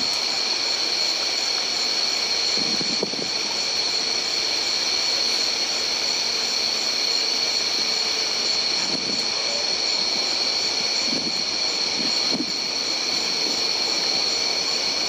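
Steady, high-pitched chorus of night insects, holding several constant tones without a break.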